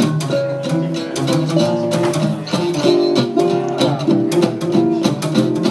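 Small acoustic band playing an instrumental passage: strummed guitars keep a steady beat under a held melody line.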